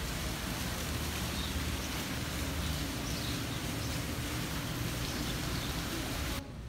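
Steady outdoor ambient noise: an even hiss with a low rumble under it and a few faint bird chirps. It cuts off abruptly near the end.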